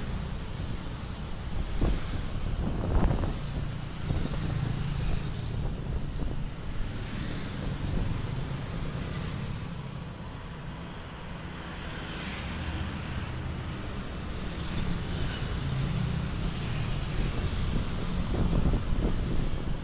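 Road traffic: a steady low rumble of passing vehicles, with a couple of short knocks about two and three seconds in.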